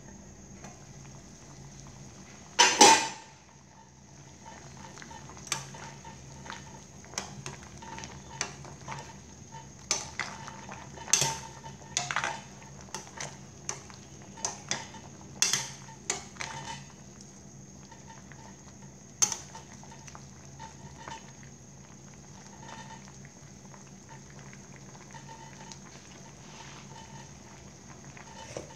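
A stainless steel pot lid clatters down with a ringing clang about three seconds in. Then a utensil clinks and knocks against the pot again and again as boiling soup is stirred, the soup bubbling under a steady hum.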